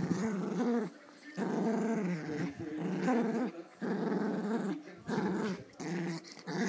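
Adult Pomeranian growling in play, a run of about six rumbling growls, each half a second to a second long with short breaks between. It is play-growling, not aggression.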